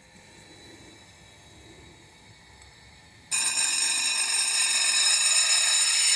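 Silvey square chain grinder's electric motor and wheel spinning: a faint hum at first, then, about three seconds in, a loud steady high-pitched ringing whine that starts abruptly. The bearings run quiet, with no grinding or rumble.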